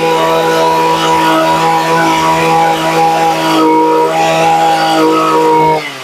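Makita MEM264 brush cutter's small two-stroke engine running at a steady speed, then cutting out abruptly near the end.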